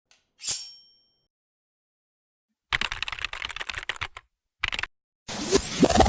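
Computer keyboard typing sound effect: a rapid run of key clicks for about a second and a half, then a short burst after a brief pause. Near the end a rising whir full of fast clicks starts, a tape-winding effect.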